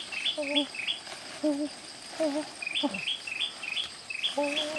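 Wild birds calling in the forest: a short, low hooting call repeated about once a second, over runs of quick, high, hooked chirps at about four a second.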